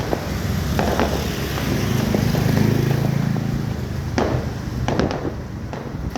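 Aerial fireworks bursting: sharp bangs with crackle, a couple about a second in and a cluster about four to five seconds in, over a continuous low rumble that swells around the middle.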